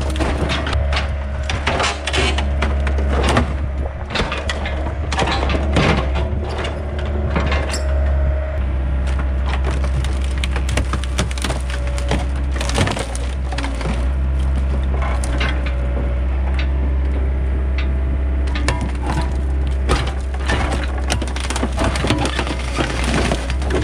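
An excavator bucket crushing a rusted-out pickup truck's cab: repeated cracking, crunching and snapping of sheet metal and trim, densest in the first several seconds and again near the end. Under it the excavator's engine drones steadily.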